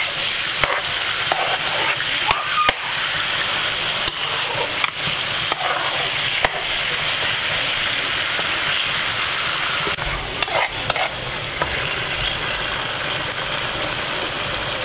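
Sliced onions and tomatoes frying in oil in a pan, sizzling steadily, while a spoon stirs them, scraping and knocking against the pan with scattered clicks.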